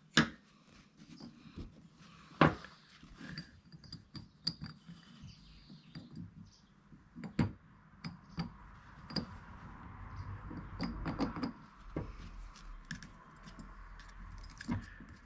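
Small metallic clicks and taps as a screwdriver tip and steel detent balls work against a Classic Mini synchromesh hub seated in its assembly-tool ring. The spring-loaded balls are being eased into the ends of their holes. Two sharper clicks come just after the start and about two and a half seconds in, with lighter ticks scattered through the rest.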